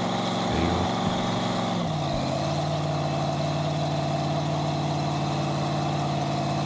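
Supercharged, mechanically fuel-injected alcohol drag-racing engine idling steadily, having just lit and stayed lit, kept alive by fuel fed from a primer bottle. About two seconds in, its idle drops a little lower and then holds steady.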